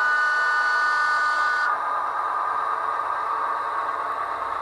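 Sound decoder of a Heljan OO gauge North Eastern Railway electric autocar model sounding a whistle for about a second and a half, over a steady running hum from the model's speaker.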